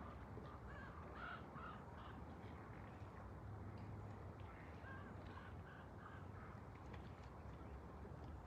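A crow cawing faintly in two runs of three or four short caws, the first about a second in and the second about five seconds in, over low outdoor background noise.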